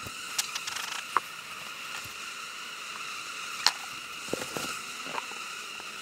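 Agitated honey bees swarming around an open hive, buzzing in a steady drone: the bees are defensive and stinging. A few sharp clicks and knocks break through, the loudest about two-thirds of the way in.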